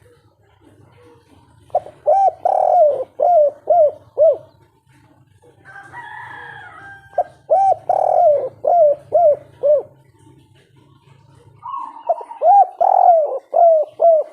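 Spotted dove (tekukur/derkuku) singing its 'kuk 3' cooing song: three phrases of several rhythmic coos each, spaced a few seconds apart. A fainter, higher bird call sounds between the first two phrases.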